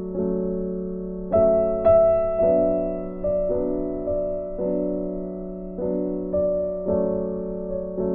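Background piano music: slow, gentle chords struck about once a second, each note ringing and fading over a held low tone.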